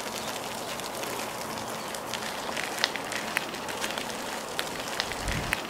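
Baby stroller wheels and footsteps crunching on a gravel path: a steady crackle with scattered sharp ticks.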